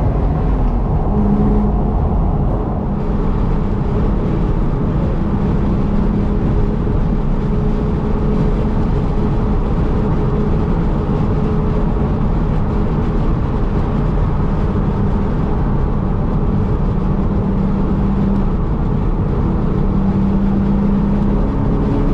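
Steady road and engine noise heard from inside a moving car's cabin: a low rumble of tyres and wind with a faint, even engine hum.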